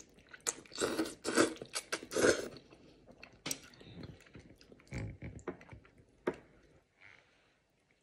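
Close-up eating sounds of spaghetti: a run of loud slurps as the strands are sucked in, then wet chewing with a few sharp clicks.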